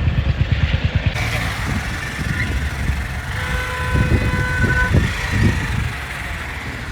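Road noise from a moving vehicle, with wind rumbling on the microphone. About three and a half seconds in, a vehicle horn sounds one steady note for about a second and a half.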